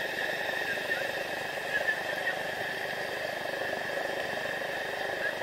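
Steady rushing noise of a whitewater rapid on a river, with a couple of brief sharper sounds about two seconds in.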